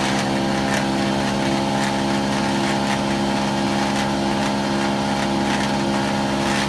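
Rented wood chipper's engine running steadily at a constant speed, with faint regular ticking above the hum.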